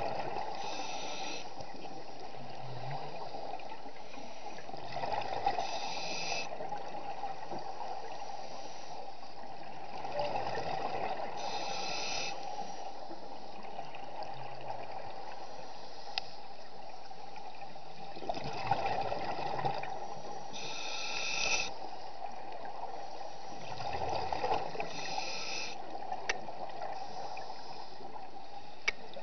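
Scuba diver breathing through a regulator underwater: a hissing inhale every five seconds or so, with a rush of exhaled bubbles between them, over a steady underwater hum.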